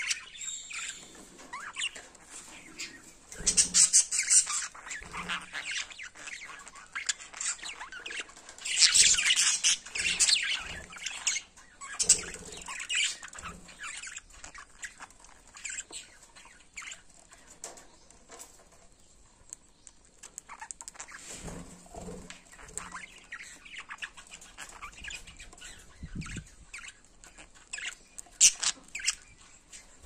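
Budgerigars chattering during courtship: short scratchy bursts of chirps and clicks a few seconds apart, with quieter stretches between.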